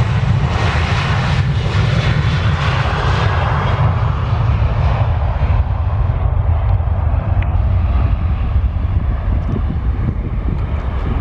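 A Boeing 737's twin jet engines (CFM56 turbofans) at takeoff thrust as the airliner rolls past on its takeoff run. The deep rumble stays steady while the higher-pitched roar is strongest early and dulls from about five seconds in as the aircraft moves away down the runway.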